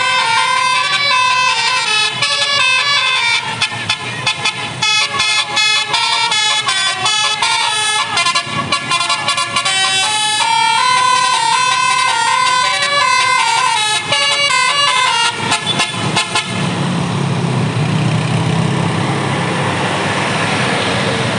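A bus's Basuri telolet multi-tone air horn plays a quick melody of stepped notes, with brief breaks along the way. About three-quarters of the way through the tune stops, and a steady rushing noise with a low hum takes over.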